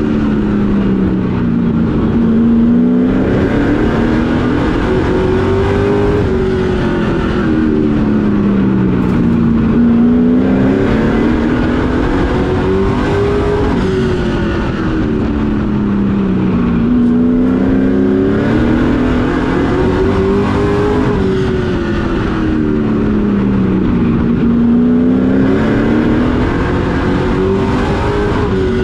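Race truck's engine heard from inside the cockpit at racing speed. Its pitch climbs down each straight and drops off into each turn about every seven and a half seconds, lap after lap of a short oval.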